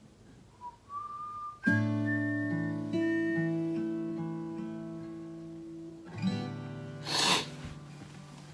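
Acoustic guitar: a chord struck about two seconds in and left ringing while single bass notes change beneath it, then another strum about six seconds in, followed by a short scratchy rasp. A faint, brief whistle-like tone comes just before the first chord.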